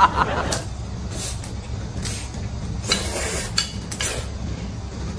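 Crayfish shells crackling and clicking as they are peeled by hand, in scattered sharp snaps about once a second, with chewing over a low steady hum.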